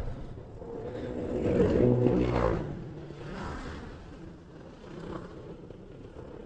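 Engine and road noise from riding a scooter through motorcycle and car traffic. An engine swells louder for about a second and a half, about two seconds in, then fades back to a lower running sound.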